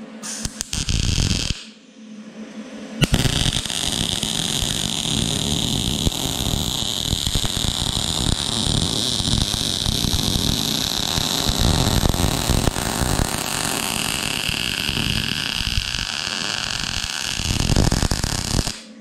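MIG welding arc from a Vulcan OmniPro 220 laying a vertical-down bead: a short burst of arc about half a second in, a brief pause, then a steady continuous arc sound from about three seconds in that cuts off suddenly just before the end.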